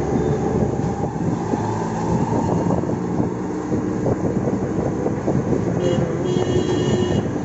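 A vehicle's engine running with rattling, heard from inside the moving vehicle as it drives along a street. A thin high tone sounds for about a second near the end.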